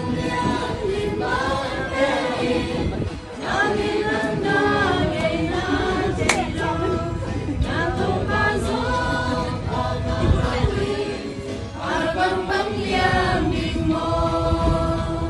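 A group of voices, mostly women's, singing a song together, with held, sustained notes. There is one sharp click about six seconds in.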